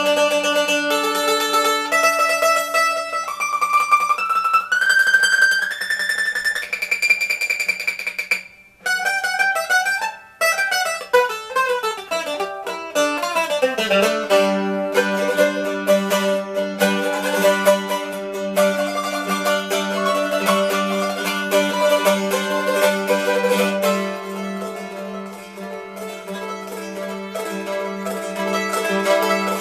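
Handmade bowlback mandolin with a spruce top and scalloped rosewood ribs, played solo with rapid picking. A melody climbs in steps over the first several seconds, then after a brief break a quick run falls, and sustained picked chords follow.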